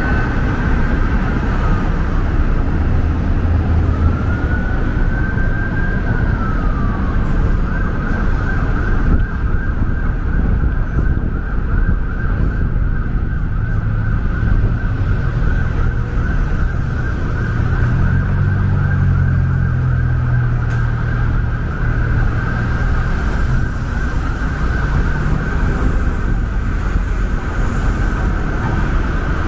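Emergency vehicle siren in city traffic: it rises and falls in pitch twice, then holds a high, rapid warble, over the low rumble of traffic with a vehicle passing about two-thirds of the way through.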